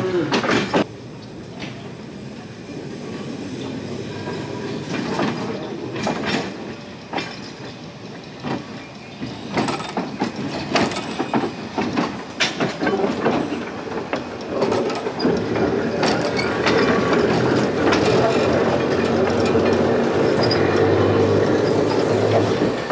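Montreal Tramways W3 crane car rolling slowly along the rails, its wheels clicking irregularly over the rail joints. A steady drone builds up in the second half and gets louder.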